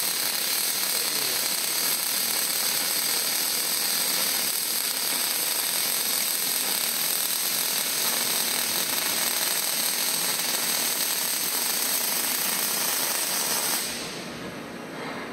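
Welding arc from a SIASUN robot's wire-fed (MIG) torch, running with a steady hiss while throwing spatter. It cuts off suddenly about 14 seconds in as the weld ends, leaving a quieter background.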